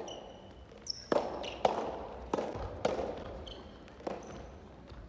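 Soft tennis rally: rubber soft tennis balls struck by rackets and bouncing on a wooden gym floor, a string of sharp hits each ringing on in the reverberant hall. Short high squeaks of players' shoes on the court come in between the hits.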